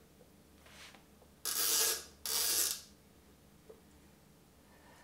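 Metal spoon scraping thick oatmeal batter out of a cup and across a waffle maker's plates: two rasping scrapes of about half a second each, with a fainter one just before them.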